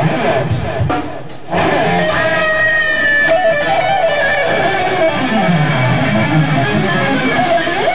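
Live band music led by electric guitar, louder from about one and a half seconds in, with held, bending notes and a low note sliding down in pitch in the second half, ending on a long steady note.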